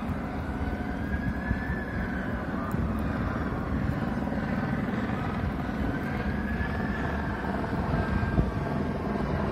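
A distant siren wailing slowly up and down, twice, over a steady low rumble.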